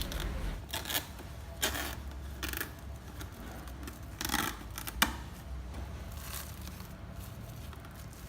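Plastic cling wrap being pulled from the roll, cut and pressed over a bowl. Several short crinkling, rustling bursts and a sharp snap about five seconds in.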